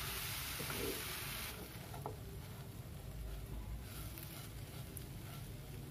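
A spatula stirs dry rolled oats and chopped vegetables in a hot nonstick frying pan, with a faint sizzle of frying. The hiss drops away about a second and a half in, leaving soft scraping and rustling of the oats against the pan.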